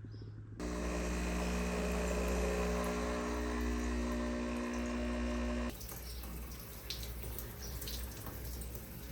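Water running from a kitchen tap into a sink, a steady rush that stops abruptly a little under six seconds in. A lighter, uneven splashing of water follows.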